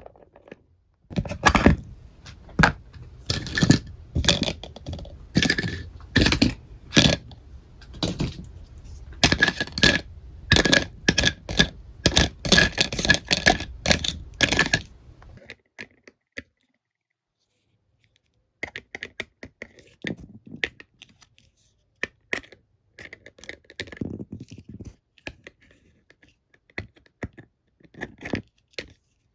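Small plastic toy kitchen pieces clicking and knocking as they are handled and set down, in quick irregular runs. The sound breaks off about halfway and then comes back as sparser clicks.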